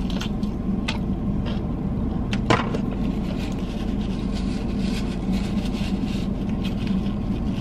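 A few soft clicks of chewing and mouth noises from a bite of crispy fried chicken, over the steady cabin hum of a car running.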